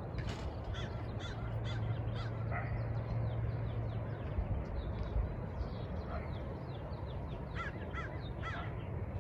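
Birds calling over and over in short, quick, downward-sliding calls, with a run of clearer calls near the end, over a steady low rumble.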